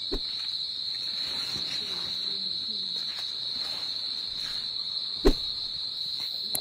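Steady high-pitched chorus of night insects, with one sharp knock about five seconds in.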